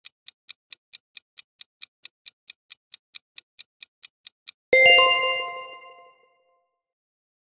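Quiz countdown timer sound effect: quick, even clock-like ticks, about four or five a second, then a single bright chime about halfway through that rings out and fades over about a second as the correct answer is revealed.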